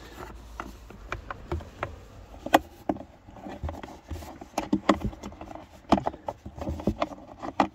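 Irregular plastic clicks and knocks as a glove box twist-lock pin is pushed in and twisted into place on a car's dashboard, with the loudest click about two and a half seconds in and a run of clicks around five to six seconds.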